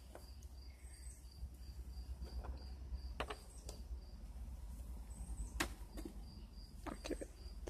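An insect chirping faintly and steadily, a short high pulse about three times a second, with a few sharp clicks over it, the loudest about two-thirds of the way in.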